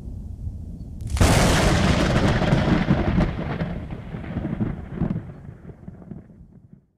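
Thunder sound effect: a low rumble, then a sharp crack about a second in and a long rolling rumble that swells again near five seconds, fading and then cutting off abruptly.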